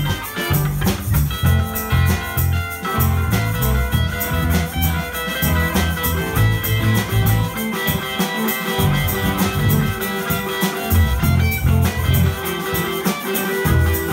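A live band playing: electric guitar and bass guitar over a Gretsch drum kit keeping a steady beat with quick cymbal strokes.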